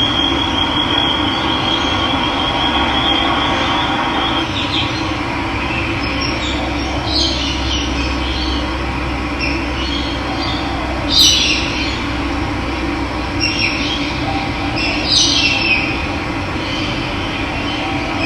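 Steady rush of running water, with a high rapid trill for the first few seconds and several short bird calls over it later on.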